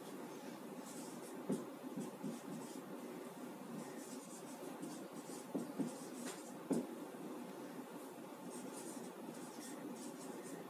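Marker writing on a whiteboard: faint, irregular squeaky strokes as letters are written out, with a few sharper taps of the marker tip against the board.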